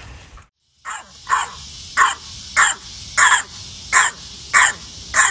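French bulldog puppy barking: a string of about eight short barks at an even pace, roughly three every two seconds, starting about a second in.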